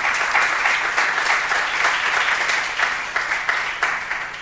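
Audience applauding with dense clapping that thins out and fades near the end.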